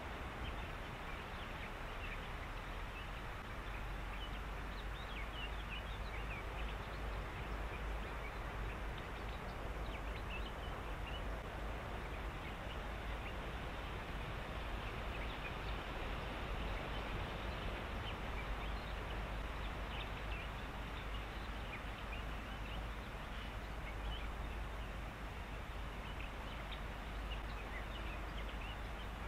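Reed-bed ambience: many short, high animal calls scattered throughout over a steady hiss and a low rumble.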